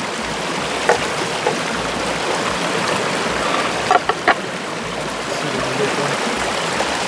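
Shallow river flowing over rocks, a steady rushing, with a few short sharp clicks about a second in and twice around four seconds in.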